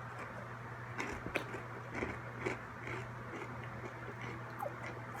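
Close-up chewing of crunchy pretzels, a string of crisp crunches that come thickest in the first three seconds, with one more near the end, over a steady low hum.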